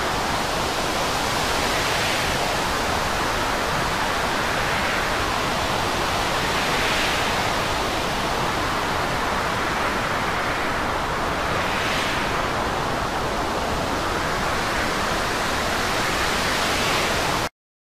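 Steady rushing noise of wind and a rough, breaking sea, swelling a few times. It stops abruptly near the end.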